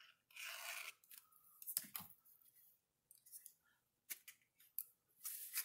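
Faint scraping and rustling of cardstock being glued and pressed together by hand, with a few sharp, light clicks.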